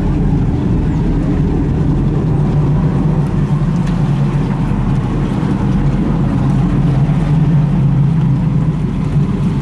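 Engines of a passenger tour catamaran running with a steady low drone as it motors slowly in toward the quay.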